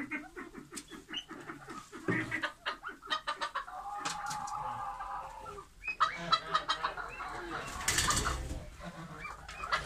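Chickens clucking in quick runs of short calls, with one long held call about four seconds in. A brief burst of wing flapping comes about eight seconds in.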